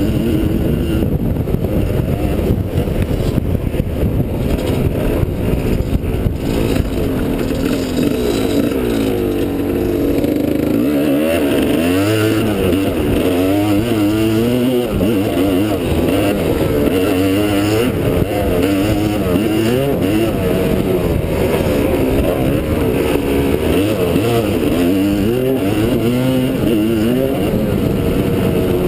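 Dirt bike engine under way, revving up and falling back again and again as the rider opens and closes the throttle and shifts over rough ground. A steady low rumble of wind on the camera runs underneath.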